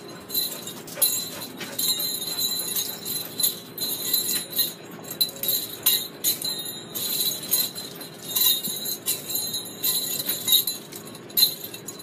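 Homemade jingle-bell begleri being slung, the small bells jingling in quick, irregular bursts.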